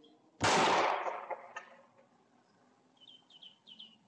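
A single gunshot about half a second in, echoing down the street for about a second, picked up by a surveillance camera's microphone. A bird chirps four times near the end.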